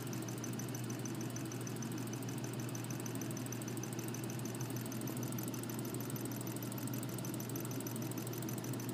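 Homemade solenoid engine running steadily, clicking in a fast, even rhythm over a steady low hum.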